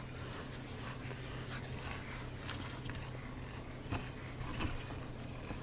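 American Bulldog puppies scuffling and padding on bare dirt as they play, small scattered scrapes and clicks over a steady low hum.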